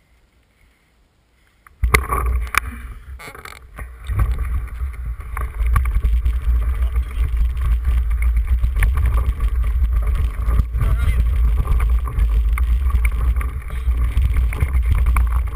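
Mountain bike riding on a gravel track: wind buffeting the bike-mounted camera's microphone in a heavy low rumble, with tyres crunching and the bike rattling over the stones. It starts abruptly about two seconds in.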